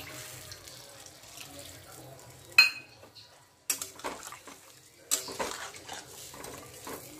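Water poured from a plastic bottle into a metal kadai of fish curry, then a metal spatula clanks sharply against the pan about two and a half seconds in and scrapes around it several times, stirring the curry.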